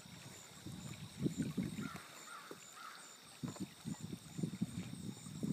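Wind buffeting the microphone in irregular gusts of low rumble, growing stronger near the end, over the faint rush of a shallow river running over rocks.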